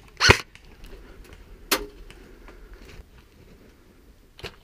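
Airsoft replica firing single shots: three short, sharp pops. The first, just after the start, is the loudest, the second comes about a second and a half later, and a fainter one comes near the end.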